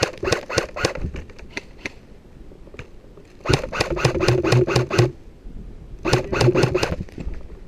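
Airsoft electric gun firing three bursts of rapid shots, a short one at the start, a longer one midway and another near the end, with the gun's motor humming under the later bursts.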